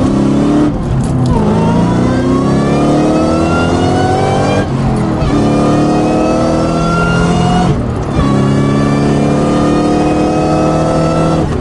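Supercharged 2003 Mustang Cobra V8 accelerating through the gears, heard from inside the cabin. Its note climbs steadily in each gear and drops briefly at three upshifts, with a higher supercharger whine rising along with it.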